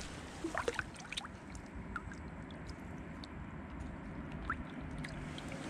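River water running and gurgling steadily, with a few faint small clicks and short chirps over it.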